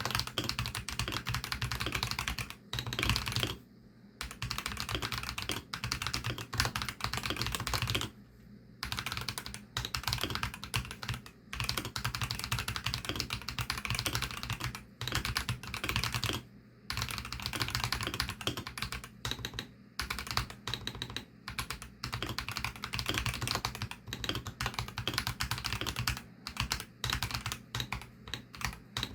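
Typing on a Varo V87 mechanical keyboard with Varo Orange tactile switches (53 g): a fast, continuous run of keystrokes broken by a few short pauses.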